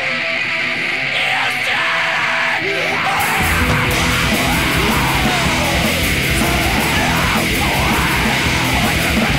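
Loud, distorted rock song with guitars and shouted vocals. The bass and drums drop out for a moment, then the full band comes crashing back in about three seconds in.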